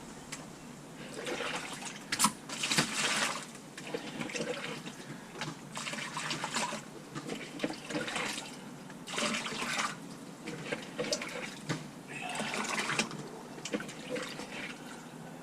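Water being scooped and poured into a bucket, in repeated splashing pours a second or few apart.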